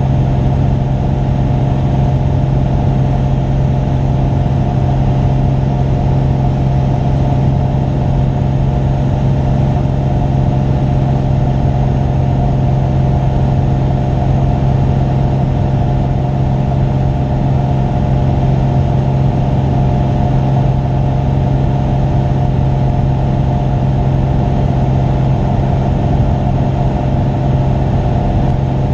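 Single-engine light aircraft's piston engine and propeller droning steadily in cruise: a constant low hum with no change in pitch or level.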